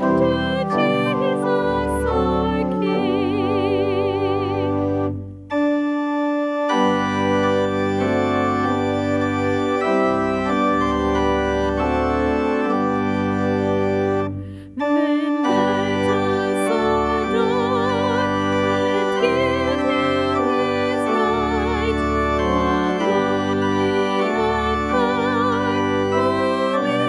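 A church organ accompanies a woman soloist singing a hymn with vibrato. The voice drops out for several seconds in the middle while the organ plays on, and the music breaks off briefly twice, about five and fourteen seconds in.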